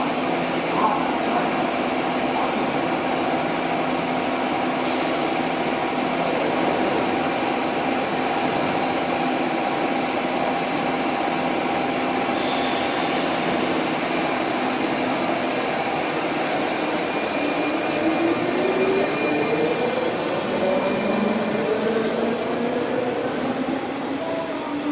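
A JR 201 series electric train stands at the platform with its equipment humming steadily. From about 17 seconds in it pulls away, and a whine from its traction motors rises in pitch as it accelerates.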